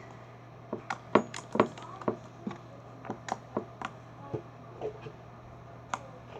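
A spoon clinking and knocking against a bowl in a quick, irregular string of sharp taps while slime and baking soda are mixed.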